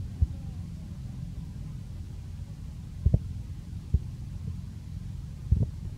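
Several dull thumps as a young macaque shifts and knocks a husked green coconut while eating from it, over a steady low rumble.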